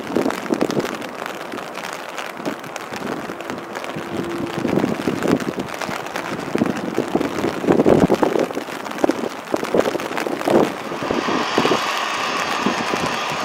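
Jet airliner engines at takeoff thrust: a rough, crackling roar, heard through rain and wind on the microphone. About eleven seconds in, this gives way to the steady whine of a taxiing Airbus A320's engines.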